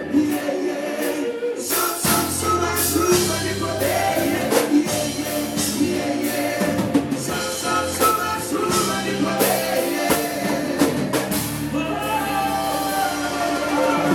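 Gospel band music with singing over a drum kit. The low end and full band come in about two seconds in.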